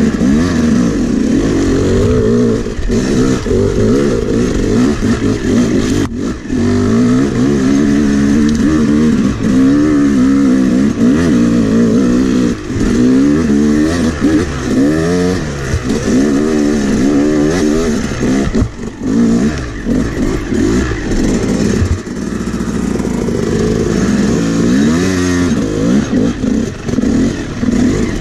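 Yamaha YZ250X two-stroke dirt bike engine being ridden, its pitch rising and falling as the throttle is worked on and off. The throttle is shut briefly a few times.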